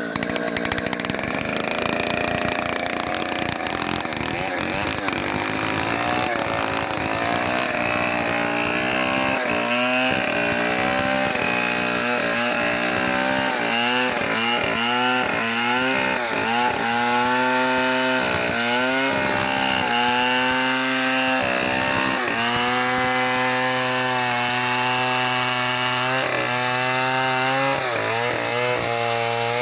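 Homemade chainsaw ripping a mango log lengthwise into planks: the engine runs under load, its pitch dipping again and again as the chain bites into the wood and then picking back up.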